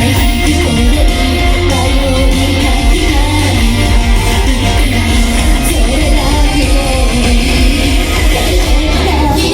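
Japanese idol group singing live over a loud, guitar-driven pop-rock backing track with a pulsing beat.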